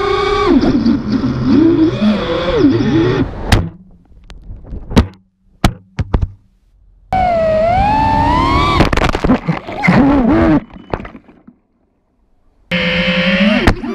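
FPV quadcopter's brushless motors and propellers whining, the pitch rising and falling with the throttle, then several sharp knocks as the drone crashes. A second whine sweeps up and down and cuts off, and after a short gap a third, steadier whine starts near the end.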